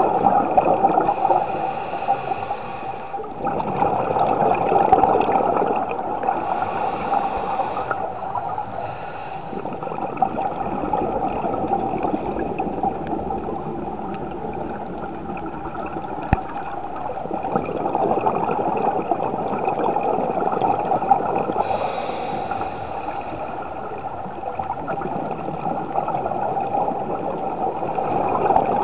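Underwater scuba dive ambience: a steady bubbling, gurgling rush of divers' exhaled regulator bubbles, swelling and fading every few seconds with the breathing.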